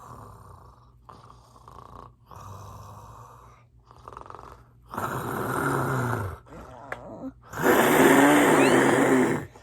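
Snoring: four softer snores of about a second each, then two long, much louder snores about five and eight seconds in, the last the loudest.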